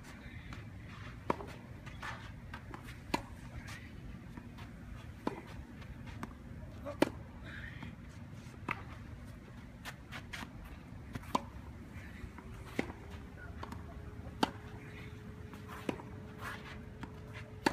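Tennis rally: sharp pops of the ball coming off a Prince Textreme Tour 95 and another racket, and the ball bouncing on the court, about one impact every second or so.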